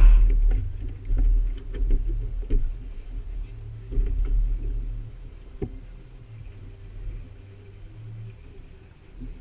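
Sounds aboard a small aluminium fishing boat while casting: a low steady hum that drops out for about a second near the end, with scattered light knocks and clicks from tackle and movement on the deck.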